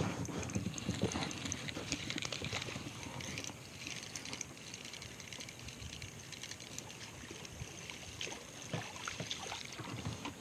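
Water splashing and trickling at the side of a plastic kayak, with irregular clicks and knocks from the rod and line being handled as a caught fish is brought in. The sound starts abruptly and is busiest in the first few seconds and again near the end.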